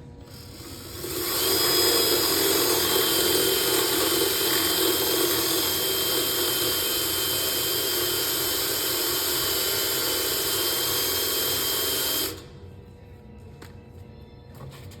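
Power drill with a small bit widening a hole in a hollow aluminum post, starting up about a second in, running steadily with a high whine for about eleven seconds, then stopping suddenly.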